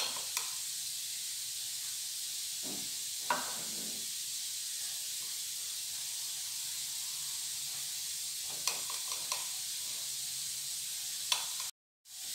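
Steady high hiss of background noise with a few faint taps as boiled garlic cloves are handled in a glass baking dish. The sound cuts out briefly near the end.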